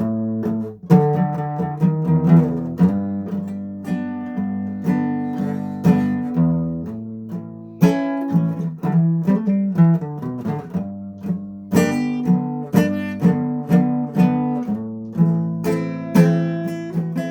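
Acoustic guitar played solo, chords struck about twice a second, each ringing and fading before the next, the chords changing as it goes.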